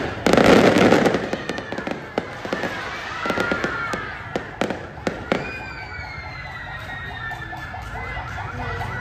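Fireworks going off: a loud boom about half a second in over rapid crackling, with the crackle thinning out by about five seconds in. Then a high whistle-like tone slides slowly downward through the rest.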